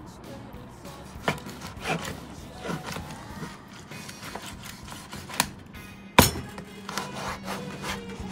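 Broad-bladed kitchen knife chopping through raw striped bass fillet onto a wooden cutting board: a handful of irregular sharp knocks with the blade sliding between them, the loudest about six seconds in.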